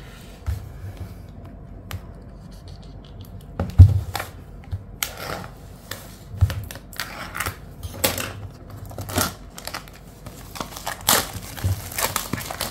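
Plastic shrink wrap being worked open with a box cutter and peeled off a cardboard box, crinkling and tearing in short scratchy bursts. A single sharp knock comes about four seconds in.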